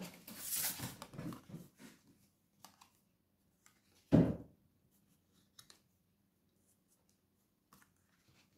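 Tarot cards being handled and laid out on a table: soft rustling and sliding for the first couple of seconds, a single louder swish about four seconds in, then a few faint ticks.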